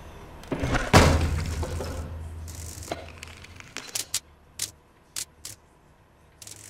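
A heavy thud about a second in, with a low hum that rings on and fades over the next second. The background hum of the alley then falls away, and several short sharp clicks follow in the second half.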